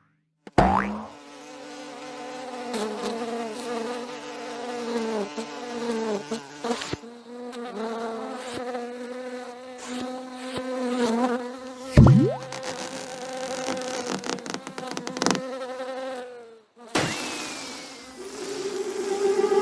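A buzzing, insect-like drone, like a fly or mosquito, wavering slightly in pitch, with a brief loud swoop about twelve seconds in. It stops abruptly near the end and gives way to a short hiss.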